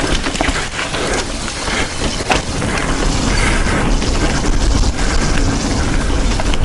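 Mountain bike running fast downhill over a dirt trail: steady wind buffeting on the action-camera microphone under the clatter of tyres, chain and frame over bumps, with a sharp knock about two seconds in.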